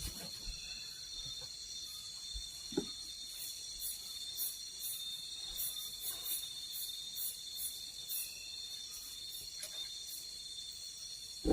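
Insects, crickets among them, keep up a steady shrill ringing, with a quick run of very high chirps through the middle. A soft knock comes about three seconds in, and another at the very end.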